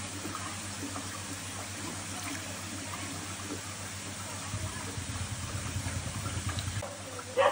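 Water lapping and trickling in a shallow koi tank as a hand moves a fish at the surface, over a steady low hum. A low fluttering rumble rises from about halfway through and stops shortly before the end, where a brief louder sound comes in.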